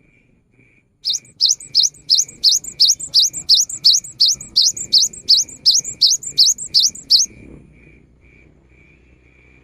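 A gelatik batu (cinereous tit) singing a fast series of short, rising high notes, about three a second, which stops about seven seconds in.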